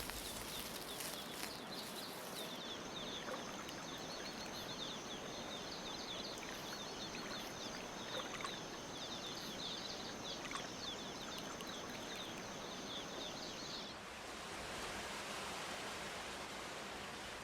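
Rainforest ambience: a steady high-pitched drone with many quick chirps over it. About fourteen seconds in, the chirping stops and a steady hiss takes over.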